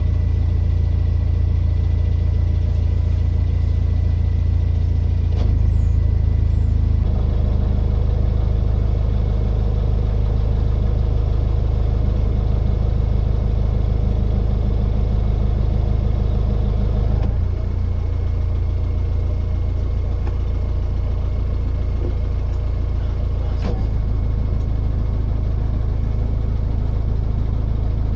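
Narrowboat's diesel engine running at low revs, its note changing a few times as the throttle is adjusted.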